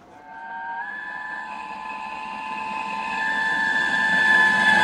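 Steam whistle of a Britannia class 4-6-2 locomotive sounding one long blast, growing louder as the train approaches, with the noise of the oncoming train building underneath.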